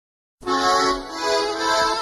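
Instrumental music starts about half a second in: held chords, changing to a new chord about a second in.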